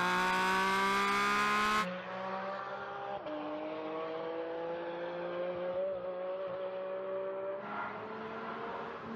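Porsche 718 Cayman GT4 RS Clubsport's 4.0-litre flat-six race engine accelerating hard, its pitch climbing steadily. About three seconds in the pitch steps down, as at an upshift, then climbs again.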